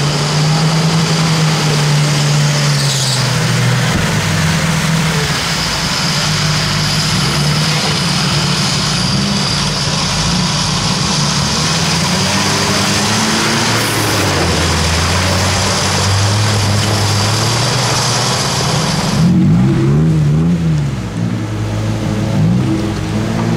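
Off-road SUV engines running under load as they push through deep muddy water, over a steady rush of churned water and mud. Near the end the water noise drops away and a smaller engine revs up and down several times.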